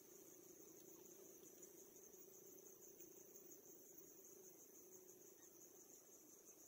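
Faint insect chorus in the trees, a steady high, finely pulsing trill, over a faint low hum.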